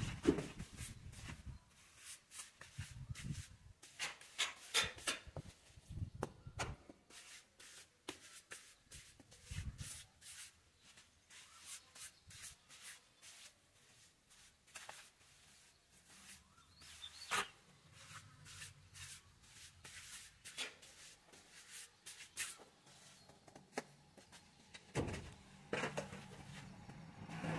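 Mason's trowel scraping and pressing wet cement plaster at the base of a wall, in irregular short scrapes and light taps.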